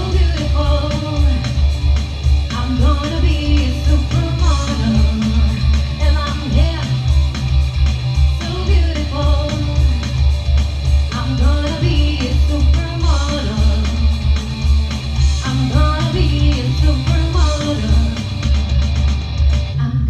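A live rock band playing a song: a woman singing over bass guitar, electric guitar and drums keeping a steady beat.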